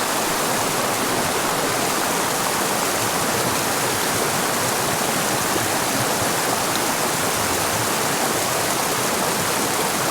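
Small mountain creek rushing over a rocky bed: a steady, even rush of water.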